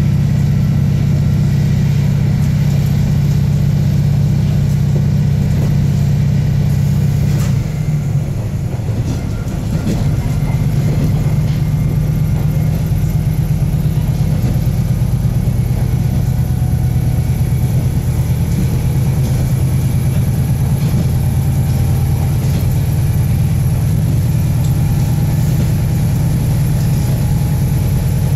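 Diesel engine of a KiHa 48 railcar heard from inside the passenger cabin, running with a strong, steady low drone. About eight seconds in the note dips and weakens for a couple of seconds, then picks up again at a slightly different pitch.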